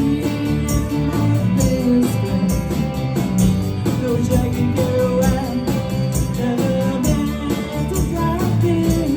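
Live indie pop band playing a song: strummed guitars, bass and a steady drum beat under a sung melody, with a tambourine shaking along.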